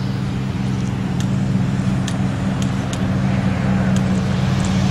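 Steady low motor hum, like an engine running at a constant speed, with a light hiss and a few faint ticks.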